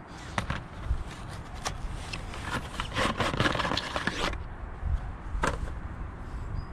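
Valeo HR24 rear wiper blade being slid out of its cardboard box: scraping and crackling of the packaging, busiest about three to four seconds in, then a single sharp click a little after five seconds.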